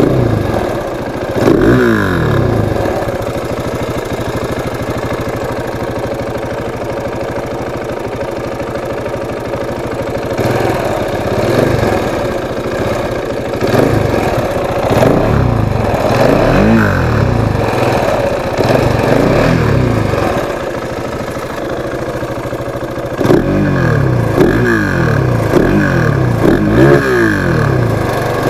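KTM 690 Enduro R's single-cylinder engine on its stock exhaust, running steadily and revved up and back down again and again, with a quick run of revs near the end.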